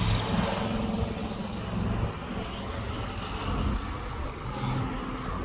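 A motor vehicle engine running with a low, steady hum. It is stronger in the first two seconds and swells again near the end.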